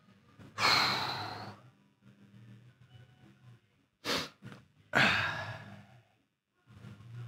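A man sighing heavily twice, two long breathy exhales about four seconds apart, each starting sharply and fading over about a second, with a short breath between them.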